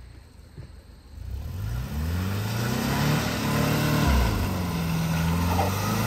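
Subaru Outback's engine revving as the car struggles in thick, clayish mud. The revs start climbing about a second in, drop briefly about four seconds in, then climb again.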